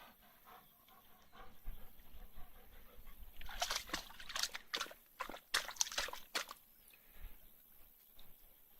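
A dog splashing in water: a quick run of about eight splashes begins about three and a half seconds in and lasts some three seconds, with quieter moments before and after.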